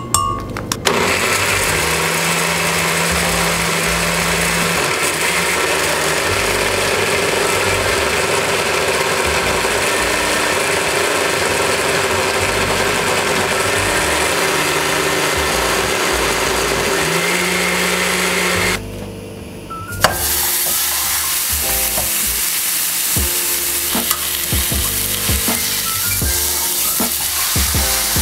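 Countertop blender running steadily for about eighteen seconds, puréeing dried chiles and garlic into a thick sauce, then stopping. After a short pause, a beef chuck roast sizzles in a frying pan with a crackle of small pops.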